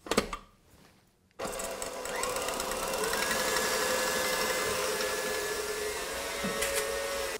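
KitchenAid Heavy Duty stand mixer switched on about a second and a half in. Its motor speeds up with a rising whine, then runs steadily as the wire whisk beats eggs, egg yolks and sugar.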